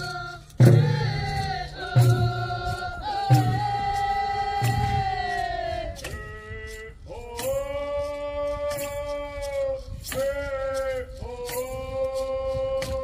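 Singing in long held notes over a slow, steady drum beat; the drum drops out about halfway through and the singing carries on alone.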